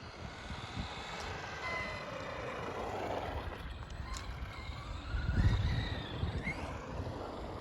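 ARRMA Granite 4x4 BLX 3S RC monster truck's brushless electric motor whining as it is driven hard off-road, its pitch rising and falling with the throttle. A louder low rumble comes about five seconds in.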